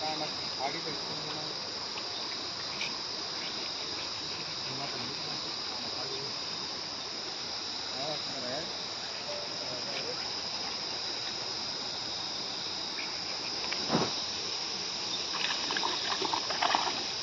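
Steady high-pitched chirring of insects throughout. About fourteen seconds in there is a sudden thump, and near the end a few seconds of splashing and dripping as a wet cast net is pulled up out of the pond water.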